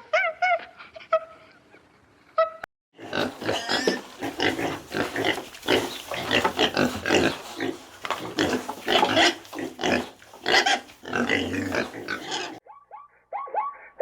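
Pigs grunting and squealing loudly, in a dense, continuous jumble of overlapping rough calls. It is preceded by a few short high-pitched animal calls, and it cuts off near the end into quick, repeated, falling chirps.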